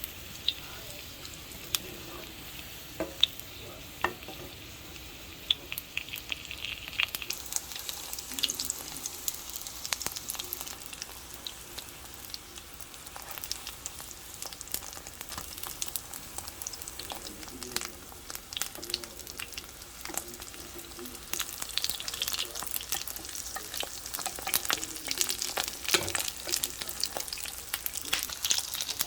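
Food frying in hot oil in a pan, sizzling with sharp crackling pops; the sizzle is sparse at first and grows much denser about seven seconds in.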